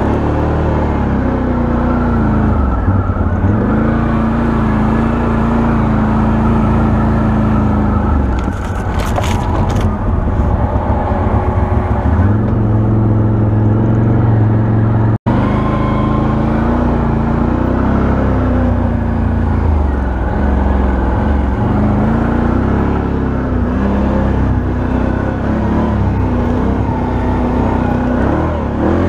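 Can-Am Outlander 1000 XT-P quad's V-twin engine running under way, its pitch rising and falling as the throttle opens and closes.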